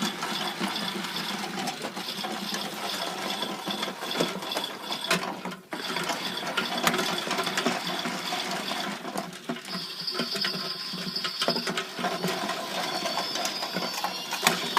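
Washing machine and tumble dryer running together: a busy mechanical clatter with many small clicks and rattles, with a high whine coming in about ten seconds in.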